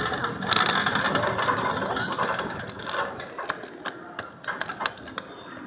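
Metal shopping cart being pushed across a store floor, its wire basket and casters rattling and clicking. Louder for the first few seconds, then quieter from about three seconds in.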